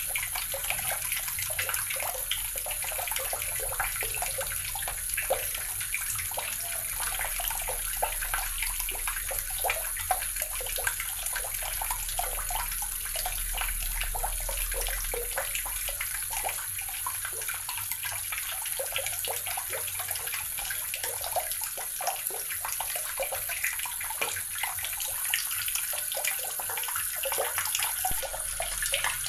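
Water running steadily from a tap, splashing continuously with small irregular splashes.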